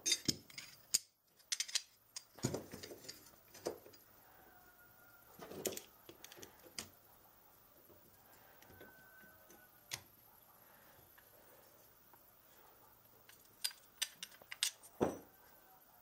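Steel parts of a homemade nutcracker and a pair of locking C-clamp pliers being handled and fitted together: scattered metallic clicks, clinks and knocks in short clusters with pauses between, the last cluster near the end.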